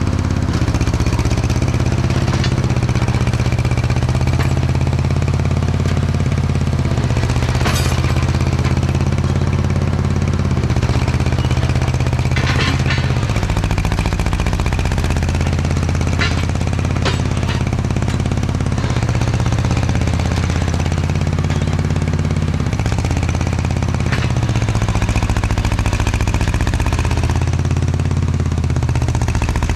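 Earth-moving machine's engine running steadily and loudly, its pitch dipping and rising a few times, with a few sharp clanks and knocks scattered through.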